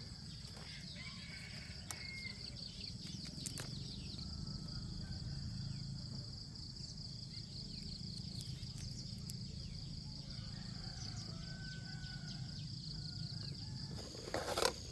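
Countryside ambience: a steady high insect drone runs throughout, with a few faint short bird calls over a low rumble. A short loud noise comes just before the end.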